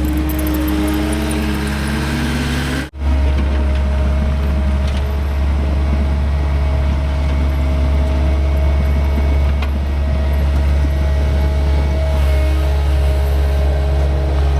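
Skid steer's diesel engine running steadily while grading dirt with a smooth bucket, with a whine that shifts in pitch near the start. The sound cuts out for an instant about three seconds in.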